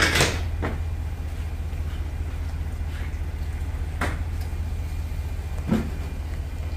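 A vehicle engine idling with a steady low hum. A tarp lands on the metal salt spreader with a loud rustle at the start, followed by a few short knocks and rustles as it is pulled into place.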